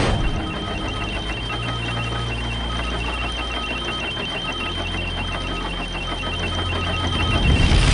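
Sound-design bed of short, high electronic beeps of uneven lengths, repeating over a low steady drone.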